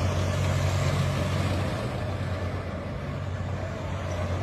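Tracked armoured vehicle's engine running with a steady low hum under a broad rushing noise as the vehicle turns on asphalt.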